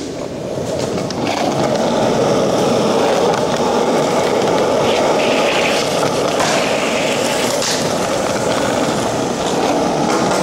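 Skateboard wheels rolling on concrete, a loud steady rumble that builds about a second in, with a couple of sharp clacks of the board about halfway through as the skater pops over a handrail and lands.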